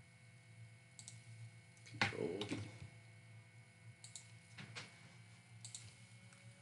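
Faint, scattered clicks of a computer mouse and keyboard, a handful spaced about a second apart, the loudest about two seconds in.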